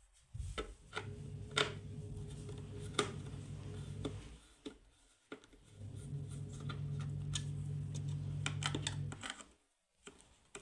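Screwdriver clicking and scraping on the metal mounting screws and frame of a small woofer in a wooden speaker box. A low steady electrical hum runs underneath and drops out three times.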